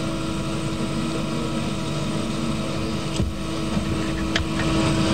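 Steady background hum with hiss, and two faint clicks about three and four and a half seconds in.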